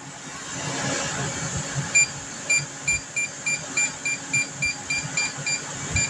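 Air conditioner control panel beeping in a fast run of short, identical beeps, about four a second, starting about two seconds in as its buttons are worked. Under it the 12-volt DC roof air conditioner's fan and compressor run steadily in eco mode.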